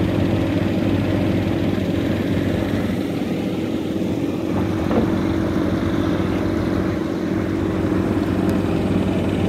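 Steady engine drone at idle with an even low hum, from the fish-stocking truck's engine. It does not change in pitch or level.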